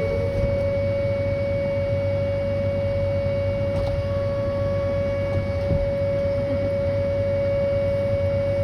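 Whelen 2810 outdoor warning siren, a 560 Hz unit, sounding one steady, pure wail on a scheduled test, having just wound up to full pitch.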